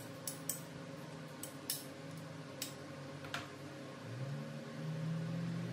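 A handful of sharp metallic clinks from hand tools and loose metal parts being handled during motorcycle work, over a steady low hum; a second hum glides up and comes in about four seconds in.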